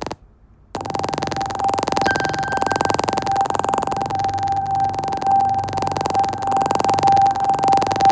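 Computer audio playback marred by continuous static hiss with a steady high hum, starting abruptly after a brief silence; a second, fainter tone joins about two seconds in. This is the Apple TV static fault, which the owner cures by switching the Mac's audio output format from 44.1 kHz to 48 kHz.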